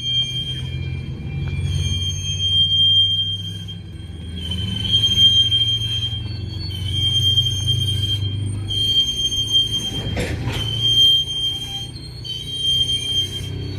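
Freight train of tank cars rolling slowly past, with a high-pitched steel wheel squeal that comes and goes every second or two over a low rumble. A single clank about ten seconds in. This is the bad squeaking and clanging heard as the train ran with a problem that later made it stop.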